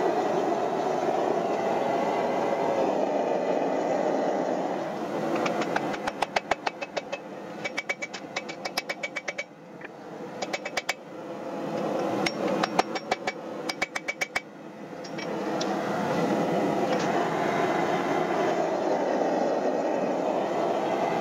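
Hammer blows on a red-hot axe head on the anvil, in several quick runs of strikes with a ringing note, several blows a second. Before and after the hammering there is the steady rushing noise of the forge running.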